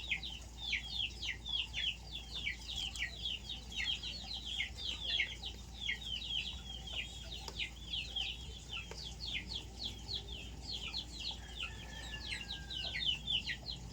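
Chicks peeping: a steady stream of short, high, downward-sliding cheeps, several a second, without a break.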